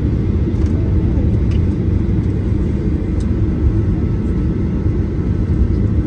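Cabin noise of a Boeing 737-800 rolling along the runway after touchdown: a steady low rumble from the wheels and engines, heard from a seat over the wing.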